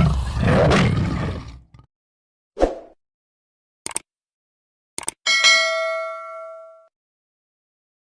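A loud rushing noise that cuts off abruptly near the two-second mark, then a few short thuds. About five seconds in comes a single bell-like ding that rings out for about a second and a half.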